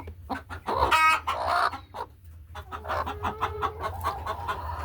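Hens in a laying coop clucking and calling, with a short sharp call about a second in and a drawn-out low murmur later on.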